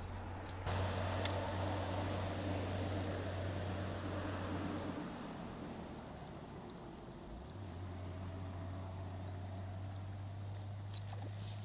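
Steady high-pitched chorus of insects, coming in suddenly under a second in, with a low steady hum underneath.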